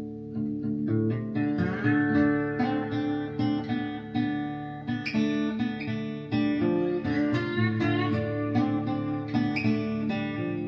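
Blues/country music led by plucked acoustic guitar, played back through Polk Audio Reserve tower speakers.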